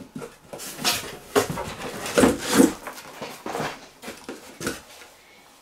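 A pet's short whines and breathy pants, a string of brief bursts about every half second that die away near the end.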